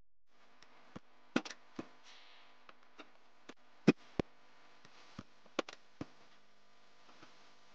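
Irregular sharp clicks and taps, the loudest about one and a half and four seconds in, over a faint steady hum.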